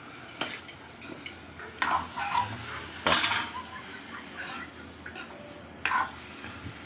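A metal cooking pot (degchi) clanking and clattering a few times as it is handled and taken off the heat, the loudest knock about three seconds in.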